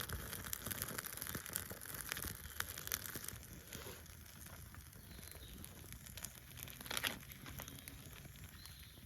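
Newly lit campfire crackling with many small pops, busier in the first few seconds, and one sharper crack about seven seconds in.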